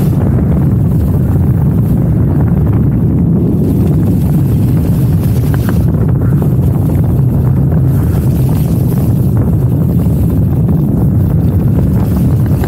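Wind rushing over the microphone of a camera carried by a skier moving downhill, a loud steady low rumble.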